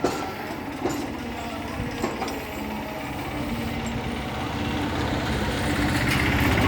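Small electric backhoe with a 5 HP motor running, with a few short knocks early on, growing louder near the end.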